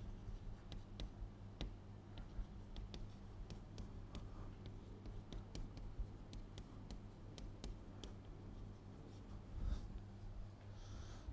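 Chalk tapping and scraping on a blackboard as words are written, heard as a string of sharp little clicks over a steady low hum. A soft thump comes near the end.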